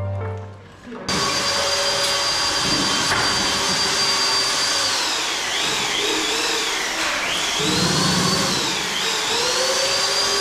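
A high-speed electric power tool or motor starts about a second in and runs on steadily, with a whine that dips and rises in pitch several times as it is worked.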